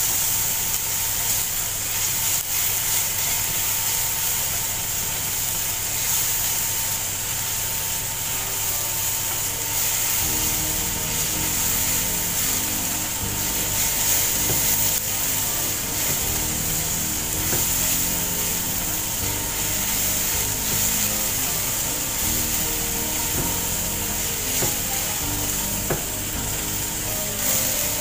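Chopped garlic sizzling in oil while a spatula scrapes and stirs it around a nonstick frying pan. Background music comes in about ten seconds in.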